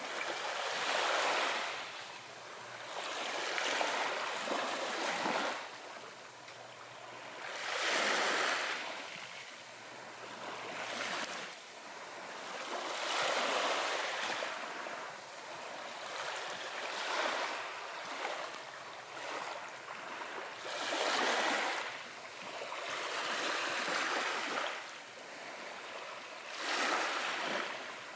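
Ocean waves breaking and washing ashore, a swell of surf rising and falling every few seconds.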